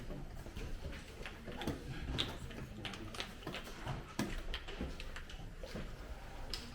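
Irregular sharp clicks and taps, several a second at uneven spacing, over a low room hum: checkers pieces being moved on a board and a game clock being pressed during a tournament game.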